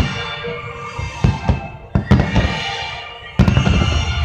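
Aerial firework shells bursting in a series of sharp bangs, with a heavy burst about three and a half seconds in, and music playing along.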